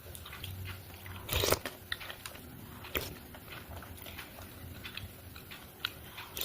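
Close-up chewing and biting of food, a run of small crackles with sharper crunches about a second and a half in, about three seconds in and near the end.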